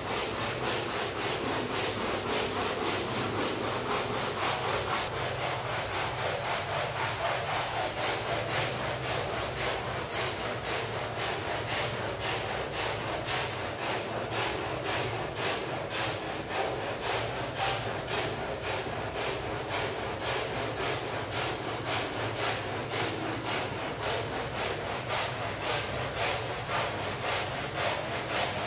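Stiff brush scrubbing a wet, dirty rug in quick, even back-and-forth strokes, about two to three a second, keeping up a steady rhythm throughout.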